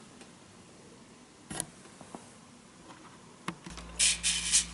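Cast-iron No. 4 hand plane handled on the bench with a couple of light knocks, then two quick scratchy strokes of its side being rubbed on sandpaper near the end. A low steady hum comes in just before the strokes.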